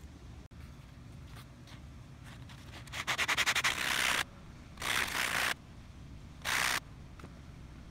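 A coin ring made from a quarter rubbed against an abrasive sanding sponge. A quick run of short scrubbing strokes comes about three seconds in, then two longer single strokes.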